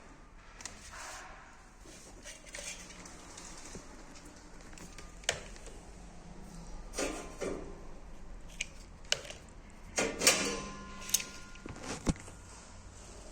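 Scattered light knocks and clinks of hard objects being handled, about a dozen irregular taps, the loudest cluster about ten seconds in, a few ringing briefly.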